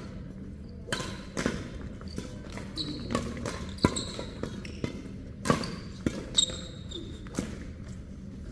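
Badminton rackets hitting a shuttlecock during a doubles rally, a string of sharp smacks at irregular intervals of roughly half a second to a second. Short high squeaks from players' shoes on the court floor come between the hits.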